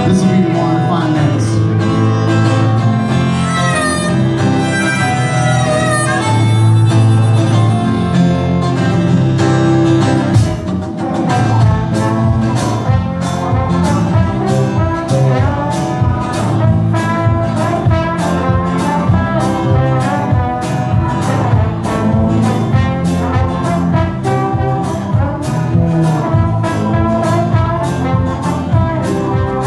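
Live band music: a trombone plays the lead over acoustic and electric guitar. A steady drum beat comes in about ten seconds in.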